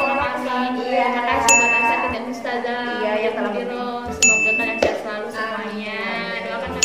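Background music with a sung or melodic line, overlaid by a bright ding chime sound effect three times, roughly every two and a half seconds.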